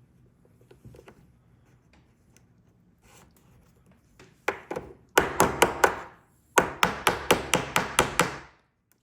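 Small hammer tapping on a metal door-lock part in two quick runs, about five sharp taps a second. The second run, about nine taps, is longer than the first.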